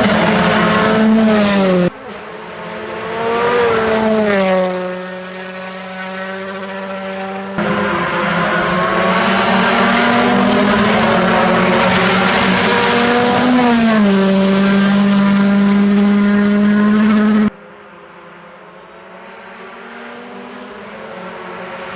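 Rally car engines at high revs, several short clips spliced together with abrupt cuts; the engine pitch holds high, then drops as a car passes. Near the end a quieter engine grows steadily louder as another car approaches.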